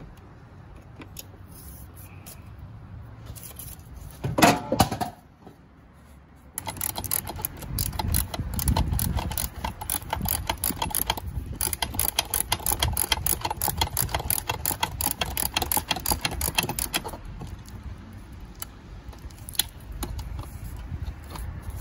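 Ratcheting wrench clicking rapidly as it runs down the mounting nuts of a new A/C condenser fan motor, in a long run of about ten seconds. Before it, about four seconds in, there is a brief loud metallic clatter.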